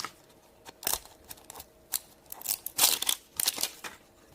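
Toy packaging being handled and opened by hand: a series of short, irregular crinkles and rustles of plastic wrapping.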